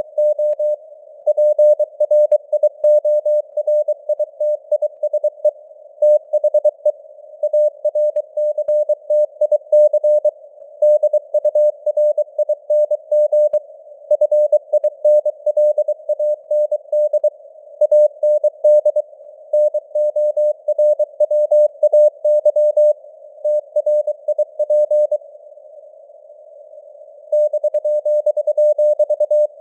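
Morse code (CW) sent at 23 words per minute: a single steady mid-pitched tone keyed on and off in dits and dahs, with simulated radio noise hissing underneath between the elements. Near the end the keying stops for about two seconds, then resumes.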